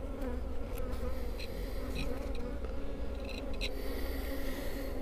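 Honeybees buzzing around an opened hive: a steady, even hum of many bees, with a few faint clicks over it.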